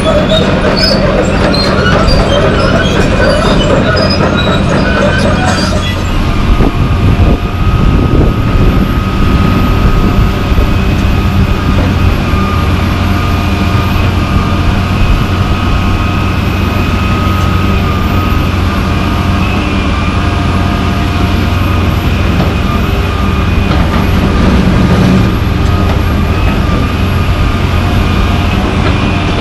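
John Deere 350D LC excavator's diesel engine running under load, with a steady high hydraulic whine as the boom and bucket move. The sound changes abruptly about six seconds in.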